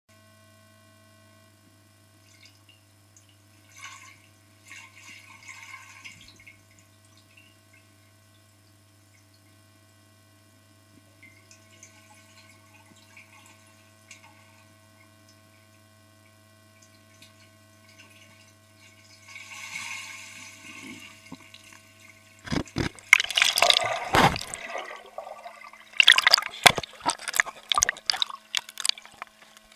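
Water in a swimming pool picked up by an action camera held underwater: a faint steady hum with a few small splashes and water movements, then loud irregular splashing and water churning right at the camera through the last quarter.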